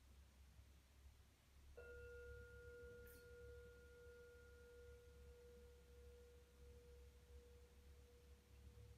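Singing bowl struck once, giving a quiet ring: a steady low tone with a fainter, higher overtone that fades slowly.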